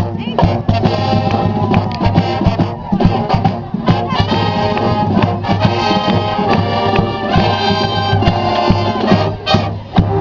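College marching band playing: brass-led tune over frequent drum strikes.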